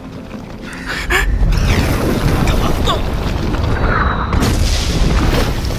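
Film sound effect of a volcano erupting: a loud, continuous low rumble with booms that swells up about a second in and keeps going.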